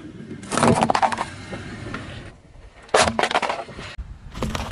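Car tyre rolling over and crushing plastic toys: a burst of sharp cracks and crunches about half a second in, another sudden one about three seconds in, and a denser crackling near the end as a pile of plastic eggs gives way.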